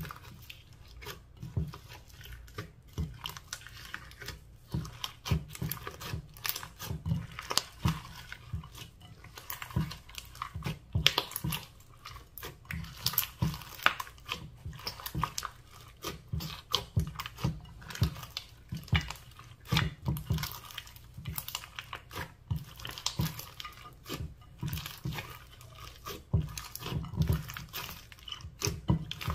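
Hands kneading, stretching and folding a large mass of glossy slime mixed with foam beads and glitter in a glass dish, giving dense irregular clicks and pops.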